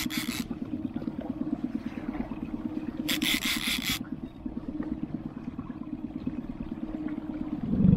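Small boat's outboard motor running steadily at low trolling speed, a low pulsing rumble with a rasping edge. Two short bursts of hiss come through it, at the start and about three seconds in.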